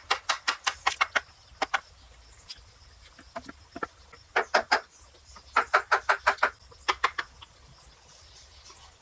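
Quick runs of sharp knocks, a hand tool striking a wooden pole, in several bursts of about five blows a second with short pauses between.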